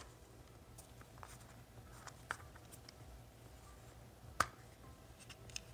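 Light clicks and taps of fingers handling a small frosted plastic accessory case and working at its snap lid, with one sharper plastic click about four seconds in.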